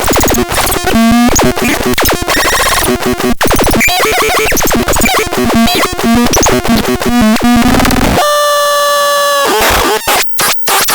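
Synthesizer playing harsh, chaotic electronic noise with rapid sweeping and warbling pitches, chopped into fast irregular stabs. About eight seconds in it holds a single steady buzzy tone for about a second and a half, then stutters and cuts in and out near the end.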